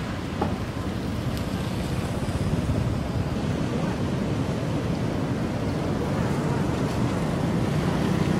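Sea surf and wind, a steady rushing with a low rumble of wind on the microphone.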